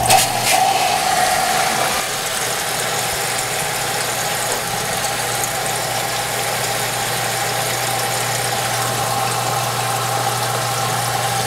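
Flotec electric pump switched on and running steadily: a constant motor hum with a higher steady tone, over rushing water as it circulates fresh water through the flushing bucket. It starts a little louder for the first couple of seconds, then settles.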